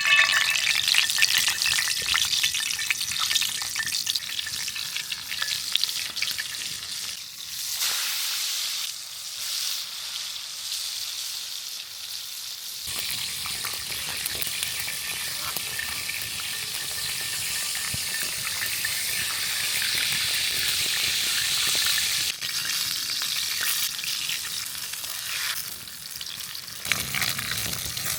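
Breaded cube steaks frying in hot oil, a steady crackling sizzle that is loudest in the first couple of seconds.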